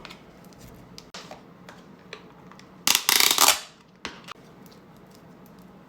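Hands handling a DIY slime kit: a few small clicks and crackles, then a loud rustling burst under a second long about three seconds in, and a shorter one about a second later.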